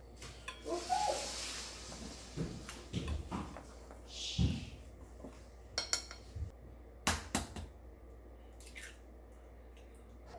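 A wooden chopstick stirring flour in a ceramic bowl, with scattered light taps and scrapes against the bowl. Two sharp cracks come about seven seconds in, an egg being cracked on the rim of a bowl.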